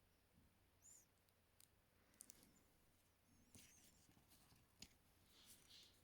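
Near silence, with a few faint, short clicks and ticks.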